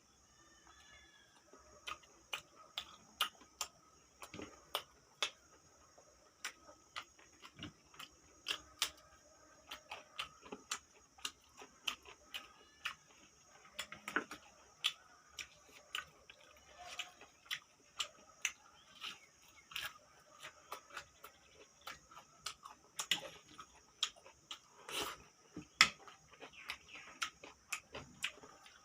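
Close-up eating sounds: chewing of pork salad with wet mouth clicks and lip smacks, short and sharp, coming irregularly about two a second.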